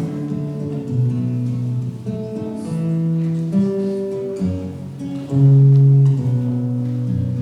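Acoustic guitar playing the instrumental introduction to a bard song, chords changing about once a second, with one louder chord a little past the middle.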